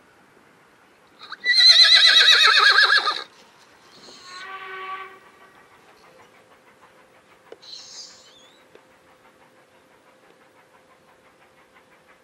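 Horse whinny sound effect: a loud, quavering neigh lasting about two seconds, then a quieter, lower call with falling pitch about a second later.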